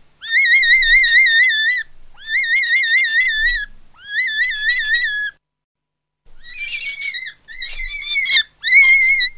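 A high, whistle-like tone with a fast, even warble in pitch, in three phrases of about a second and a half each. After a silent break of about a second it returns as three shorter, rougher phrases, the last the loudest.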